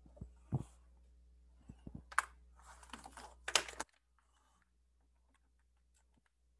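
Typing and clicking on a computer keyboard: two dull thumps in the first second, then a quick run of key clacks from about two seconds in. Just before four seconds a low background hum cuts out, leaving only a few faint ticks.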